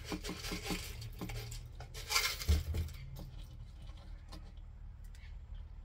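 Tiny seashells clicking and scraping against each other and a thin stick as they are poked into place in a mold: a run of light clicks with a short rustle about two seconds in, thinning out after about three seconds.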